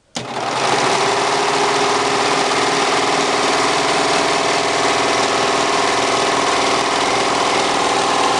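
Elna PRO 704 DEX household overlock serger running steadily at speed under the foot pedal, a loud even mechanical hum. It starts suddenly right at the beginning.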